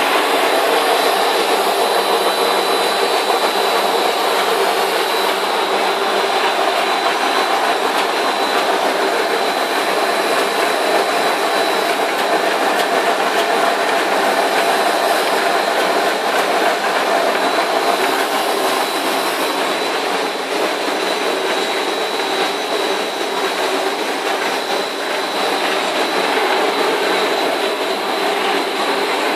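Corn puff snack extrusion line running: a steady, even machine din from its drives, cooling fans and mesh conveyor, with a thin high whine on top.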